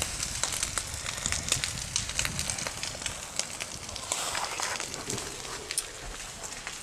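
Brush fire burning, crackling with many sharp, irregular pops over a low steady rumble.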